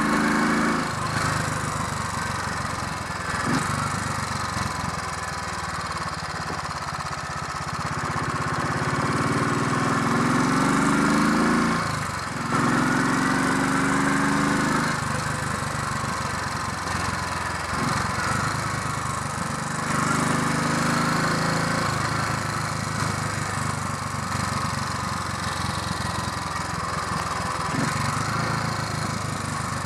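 Royal Enfield 500 Electra X's single-cylinder four-stroke engine running on the road, the revs climbing in a gear and dropping back sharply at a gear change, several times over.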